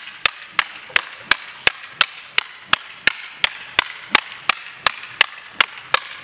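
Two bamboo lathi staffs clacking against each other in a fast, even rhythm of about three sharp strikes a second as two fighters exchange blows in a drill.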